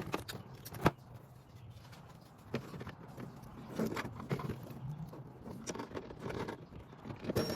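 Irregular clicks, knocks and short scrapes of parts and hand tools being handled while a car's trunk latch assembly is put back together. One sharp click just under a second in is the loudest.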